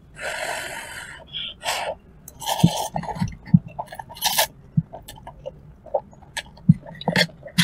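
Eating sounds of Korean cup noodles: several short, hissy slurps, with small wet chewing clicks in between.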